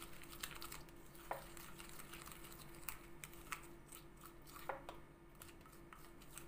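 Wooden spoon stirring a gritty paste of coarse sugar, toothpaste and cornstarch in a glass bowl: faint, irregular scrapes and clicks against the glass, with a low steady hum underneath.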